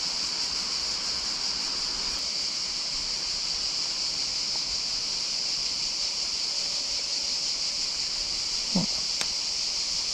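A steady, high-pitched drone from a chorus of insects. Near the end there is a brief falling swish, followed by a sharp click.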